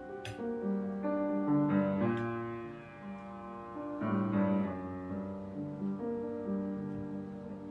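Background piano music, held notes and chords changing every half second or so, with a brief click just after the start.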